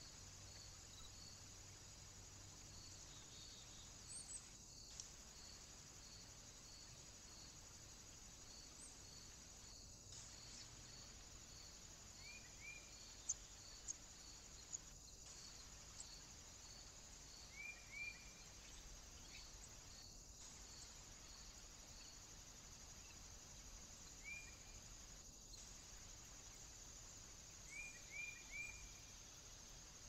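Faint woodland ambience: a steady insect hiss with a regular chirping pulse about twice a second, and a few short bird chirps in groups of two or three. Brief dropouts come every five seconds or so.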